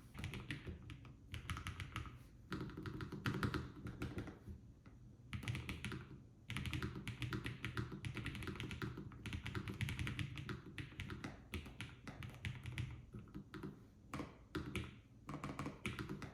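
Typing on a LOFREE Flow low-profile mechanical keyboard: quick runs of key clicks broken by a few short pauses, not very loud.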